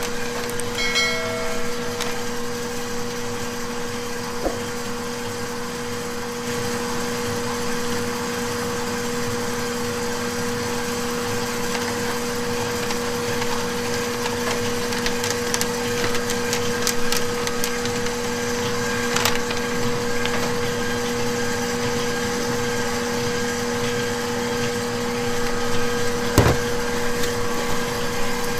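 Steady machine hum in a bakery kitchen, with crackly rustling and light clinks as cocoa powder is poured from a paper bag into a stainless steel mixing bowl. A brief high tone sounds about a second in, and a sharp knock comes near the end.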